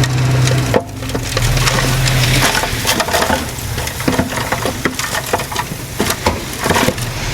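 Diesel engine of earthmoving machinery running steadily, fading after about two and a half seconds into a lower hum. Over it come many sharp, irregular clicks and cracks of soil and debris being worked.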